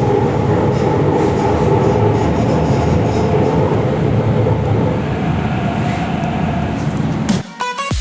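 Metro train running, heard from inside the carriage: a steady rumble with a faint whine. It cuts off near the end and music begins.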